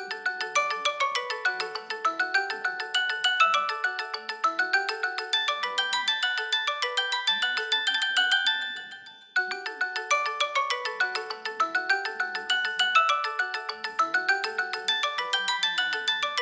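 A stock Redmi Note 7 (MIUI) ringtone: a bright melody of quick, repeated chime-like notes. The phrase fades and starts over about nine seconds in.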